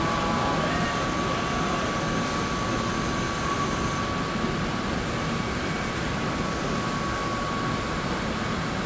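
Steady hum and hiss of running machinery in a large hall while a line of industrial robot arms works on a car body shell, with a faint constant high tone through it. The highest part of the hiss softens about four seconds in.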